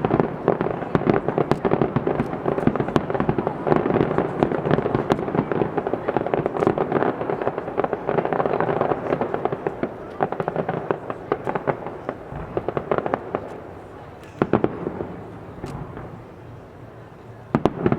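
Fireworks display: shells bursting in a dense, rapid crackling and popping that thins out about two-thirds of the way through, followed by a few separate louder bangs near the end.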